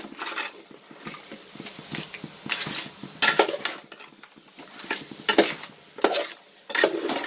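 Metal spoon stirring crab masala in a metal pot, scraping and knocking against the pot in uneven strokes, with a faint sizzle underneath.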